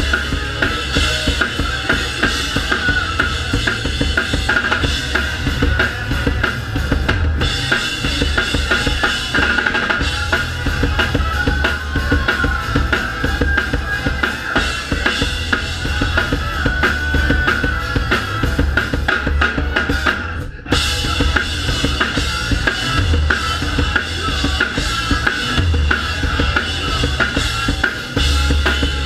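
Live ska-punk band heard from right at the drum kit, so the drums are loudest: kick, snare and cymbals driving a fast beat, with the rest of the band behind them. The music cuts out for a brief break about twenty seconds in, then comes straight back.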